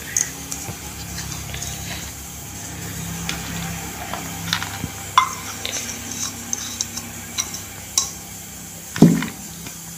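A small steel bowl clinking and scraping against a plate as its contents are tipped and scraped out, with scattered light clicks and a louder knock near the end.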